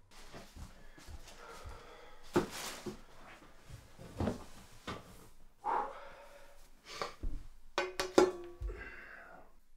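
Movement and handling sounds: footsteps, clothing rustle and a string of knocks and scrapes as a person sits down on a metal chair at a glass table and handles a laptop. The sharpest knocks come about two and a half seconds in and in a cluster near the end.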